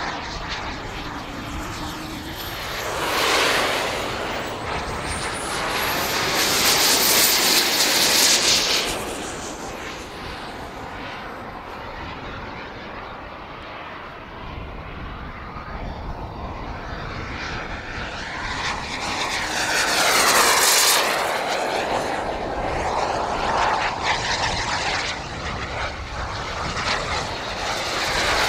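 Gas turbine engine of an Elite Aerosports Havoc SS model jet in flight: a steady rushing jet noise that swells and fades as the jet makes its passes, loudest about six to nine seconds in and again around twenty seconds. A faint high whine glides in pitch as it goes by.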